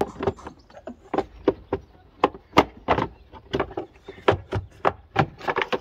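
Hard plastic air box housing knocking and clicking as it is worked loose and pulled out of a car's engine bay: a run of irregular sharp knocks and clicks.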